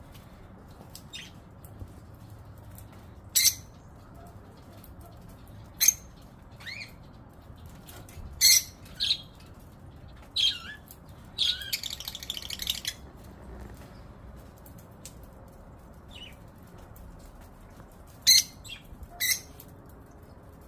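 Pet cockatiel and budgerigars calling: a string of short, sharp, high calls a few seconds apart, with a longer burst of scratchy chatter about halfway through.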